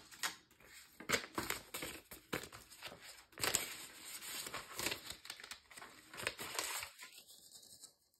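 Canadian polymer banknotes and cash envelopes being handled: irregular crinkling and rustling with small clicks and taps, fading away near the end.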